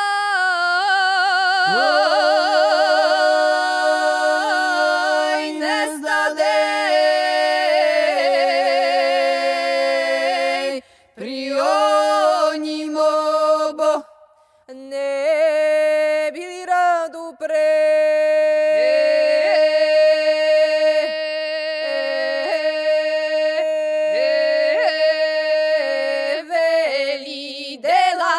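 Serbian harvest song sung a cappella by male and female voices in two parts, with long held notes decorated by wavering ornaments. The singing breaks off briefly twice, about eleven and fourteen seconds in.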